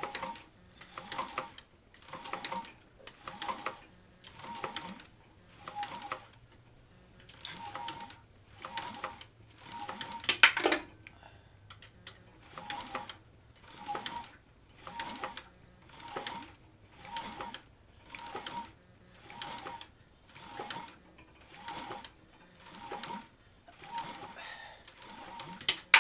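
Rebuilt Mazda 3.0L V6 on an engine stand being turned over by hand, one mechanical clicking burst with each stroke, about once a second, with one louder burst about ten seconds in. The engine is being rotated to pump fresh oil up through the valve train after priming the oil pump.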